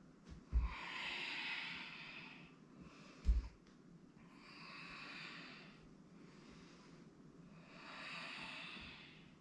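A person's breathing picked up close on a microphone: three slow, audible breaths, each about a second and a half long and about three seconds apart. Two soft thumps, the louder about three seconds in.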